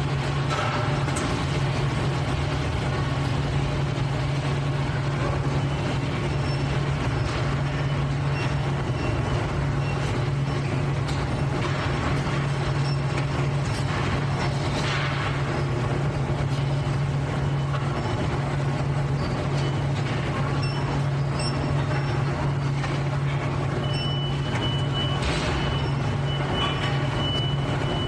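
Factory machinery sound effect: a continuous industrial hum with hiss and scattered light clanks. A steady high tone comes in near the end.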